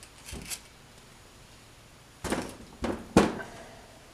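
Heavy metal differential parts, the carrier and ring gear, handled and set down on a workbench: a couple of light knocks, then about two seconds in three heavy metal clunks within about a second, the last the loudest.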